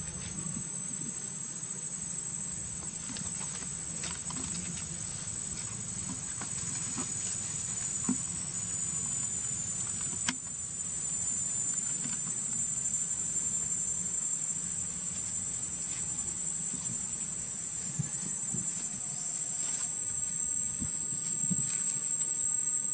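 A steady, high-pitched chorus of insects, several tones sounding at once, with a single sharp click about ten seconds in.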